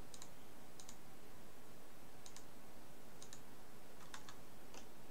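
Computer mouse buttons clicking, about six short, sharp clicks at uneven intervals, over a faint steady hiss.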